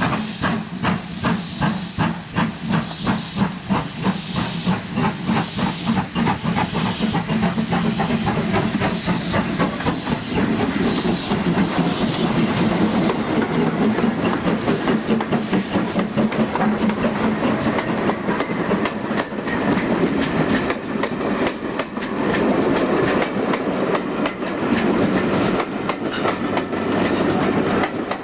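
Steam locomotive working, its exhaust chuffing in regular sharp beats. Then a steam-hauled train of coaches passes close by, its wheels clattering over the rail joints.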